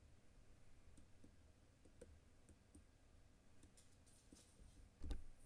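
Faint, scattered computer mouse clicks, with one dull thump about five seconds in.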